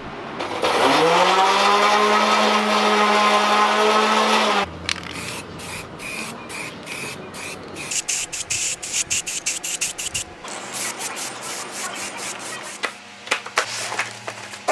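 A small electric motor spins up and runs steadily for about four seconds. Then come short hissing bursts of an aerosol spray-paint can, broken by frequent cuts.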